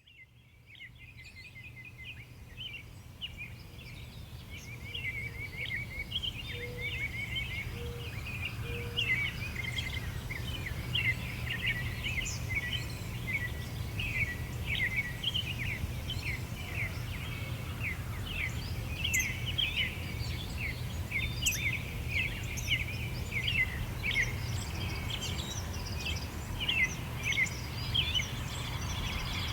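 Several birds singing at once, a dense chatter of short, quick chirps and trills, over a steady low background rumble. The sound fades in from silence over the first few seconds; a few brief low notes stand out just after the fade.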